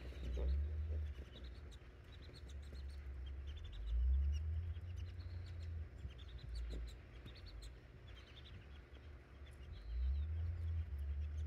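Small birds chirping over and over in short, high notes, while wind buffets the microphone in low rumbling gusts that swell and fade every few seconds.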